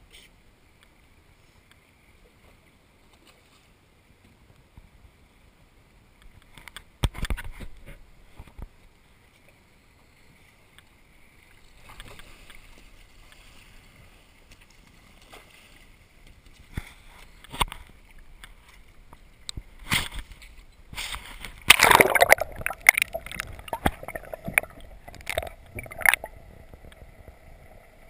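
Sea water sloshing and splashing close by, faint at first, with scattered splashes and a run of loud splashes a few seconds before the end.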